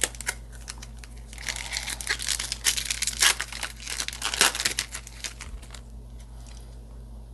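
A Yu-Gi-Oh! Ancient Guardians foil booster pack being torn open, its wrapper tearing and crinkling in a run of sharp crackles from about a second in until near the end.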